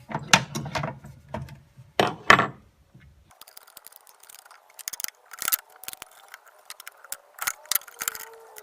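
Metal clicks, clunks and rattles as the blade guard of a Dewalt DW713 mitre saw is fitted back on after a blade change. The heavier knocks come in the first three seconds, followed by lighter clicking.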